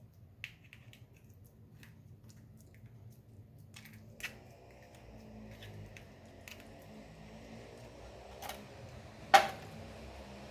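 A spoon pressing grated red onion in a strainer to squeeze out its juice: faint wet squelching and scraping, with a few sharp clicks of the spoon against the strainer, the loudest near the end.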